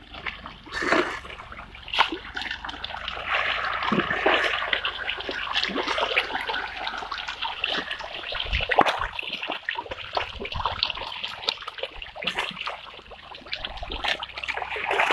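A dense crowd of farmed pond fish thrashing at the water's surface in a feeding rush: a continuous patter of small splashes with a few louder slaps.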